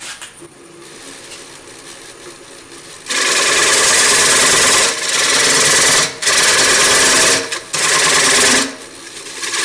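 Wood lathe starting up with a large Jatoba cutting-board blank, its motor running quietly at first. About three seconds in, a turning tool starts cutting the spinning face, a loud rough cutting noise in several passes with short breaks between them as the tool lifts off.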